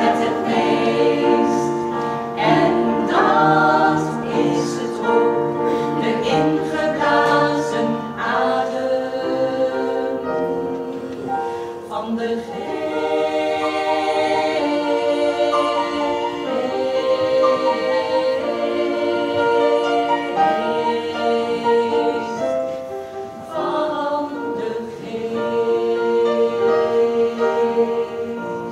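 Small women's choir singing in harmony, holding long chords of several voices that change every few seconds. The sound drops off at the very end.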